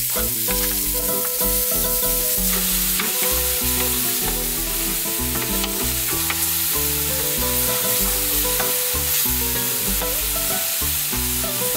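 Chopped onion, pepper and tomato sizzling steadily in hot oil in a clay pan, stirred now and then with a wooden spoon. Background music with held low notes runs underneath.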